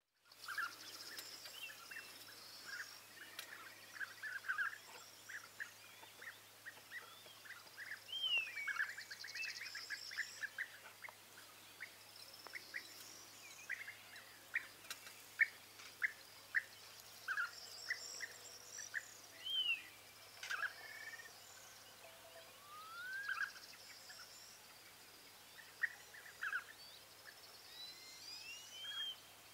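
European bee-eaters calling: many short, clipped notes and a few rising, trilled glides scattered throughout, over fainter high-pitched chatter.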